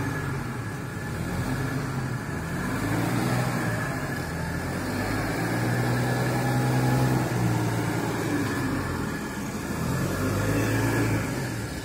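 An engine running, its pitch rising and falling slowly, twice swelling louder, over a steady low hum.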